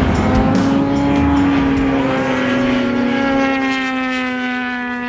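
Closing music ending on a single held note that rings on with its overtones after the drums stop and fades out near the end.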